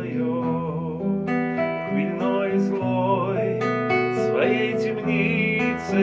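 Acoustic guitar playing a slow chord accompaniment with no singing, an instrumental break between sung lines of a song.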